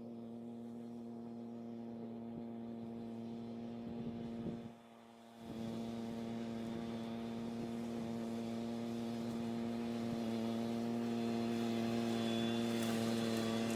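A steady, even-pitched machine hum that cuts out briefly about five seconds in, then resumes and grows slightly louder.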